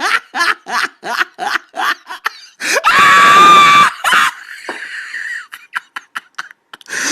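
A man laughing hysterically: a string of quick breathy laugh bursts, then a loud, high-pitched shrieking laugh about three seconds in lasting about a second, followed by scattered softer laughs and wheezes.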